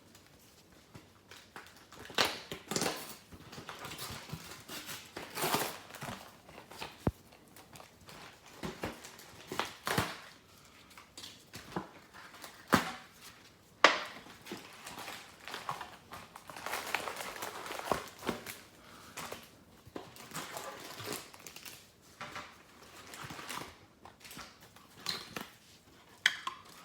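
Plastic wrapping on a hockey card hobby box crinkling and rustling as it is handled and torn open, with scattered sharp clicks and knocks of cardboard being handled.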